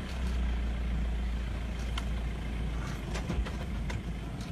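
Vehicle engine idling with a steady low rumble, with a few sharp clicks and knocks in the second half.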